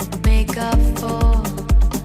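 Background music with a steady kick drum beating about twice a second under a melody line.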